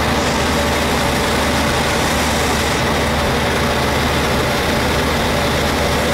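Cruise boat's engine running steadily with a low drone, under an even rushing noise.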